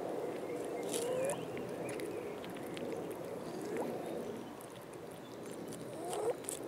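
Cat making a low, continuous, wavering mumble while eating, a kind of chattering 'talking' over its food, rising in pitch three times, with short wet clicks of chewing and lapping at the food.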